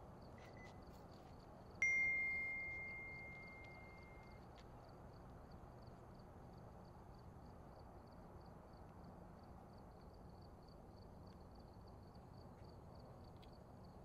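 A smartphone's text-message notification: a single bright ding about two seconds in that rings and fades away over a couple of seconds. Underneath, a faint steady background with soft, evenly repeating high ticks.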